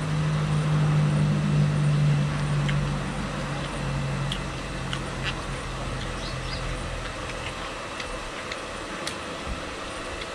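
A steady low hum, like an engine, that fades away about seven seconds in, with scattered light clicks and crunches from eating crispy pork crackling by hand at the table.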